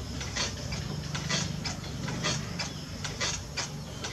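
Potter's wheel running with a low hum while wet clay is worked by hand, with short sharp ticks about three times a second.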